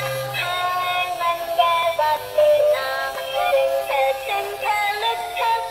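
Electronic singing baby toy playing a children's tune through its small speaker: a synthesized voice sings a simple melody of short notes.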